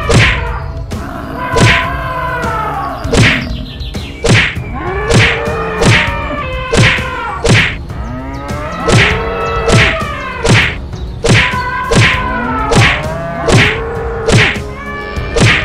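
Cartoon fight sound effects: a rapid series of whacks and thuds, roughly one or two a second, each paired with a short pitched cry that bends up and down in pitch.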